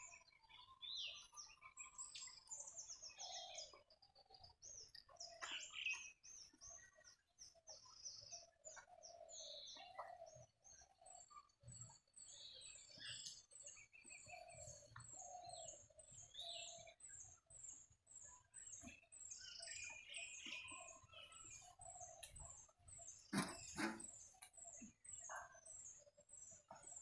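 Faint chirping of several small birds in the trees, with one thin, high call repeating about twice a second from about halfway on. A single knock a few seconds before the end is the loudest sound.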